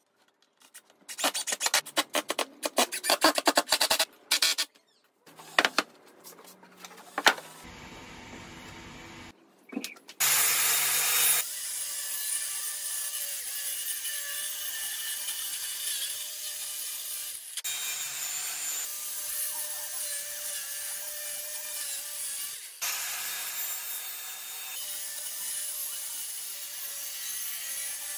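Corded circular saw running steadily and cutting through a plywood sheet from about ten seconds in. Before it, several seconds of rapid scraping strokes on wood and a few sharp knocks.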